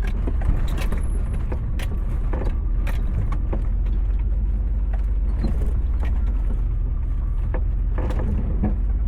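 1995 Chevrolet K1500 pickup driving, a steady low engine and road rumble with frequent short rattles and knocks.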